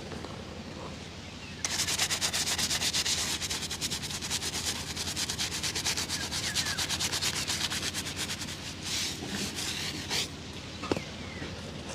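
Fast back-and-forth rubbing on a leather shoe during a shoe shine, at about six strokes a second. The strokes are softer at first and grow louder after about a second and a half.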